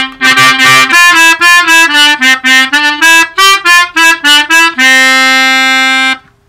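Hohner melodica, a mouth-blown free-reed keyboard, playing a quick run of short notes and ending on a long held note that stops about six seconds in.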